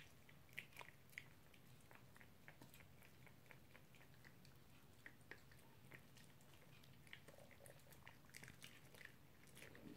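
Poodle chewing a dental chew: faint, irregular clicks and small crunches, a few coming closer together near the end.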